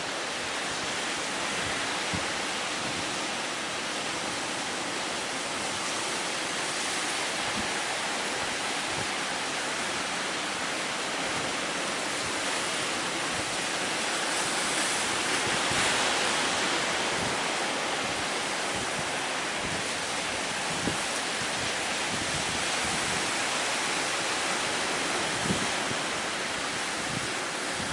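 Strong wind and high sea surf: a steady roar that swells louder about halfway through, with a few soft low thumps.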